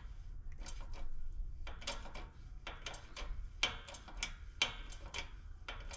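A shop press driving a shaft seal into the aluminium housing of a Bosch VE injection pump, heard as a string of irregular metallic clicks and knocks over a faint low hum.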